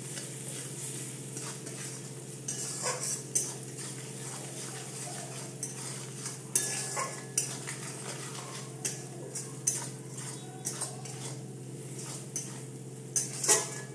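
A metal spatula scraping and clinking irregularly against a metal kadai while stirring onion-tomato masala with ground spices frying in oil, with a soft sizzle underneath. A steady low hum runs beneath it.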